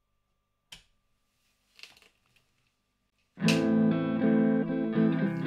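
A single click, then about three and a half seconds in an electric guitar starts strumming chords through a breadboarded DIY Tube Screamer-style overdrive circuit, giving a light, low-gain distortion.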